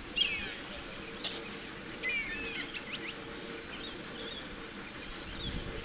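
Birds chirping and calling in short, sliding notes, a cluster of them about two seconds in, over a steady low hum and rumble.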